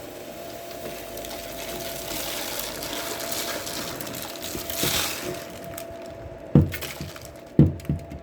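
Rustling and scraping of a bird cage being cleaned out, building up and then easing off, followed by a few sharp knocks near the end.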